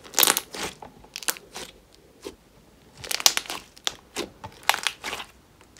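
Thick slime with eyeshadow mixed in, squeezed and pressed by hand, giving irregular clusters of crackling pops, a burst roughly every second.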